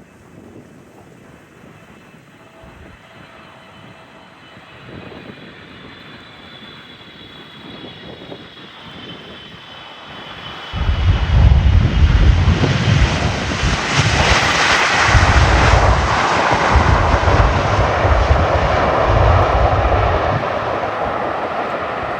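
A landing airliner approaching and passing overhead. Its engine whine grows louder and slides down in pitch, then about halfway through a heavy, surging low rumble comes in. The rush is loudest a few seconds later as the plane goes over, and it eases off toward the end.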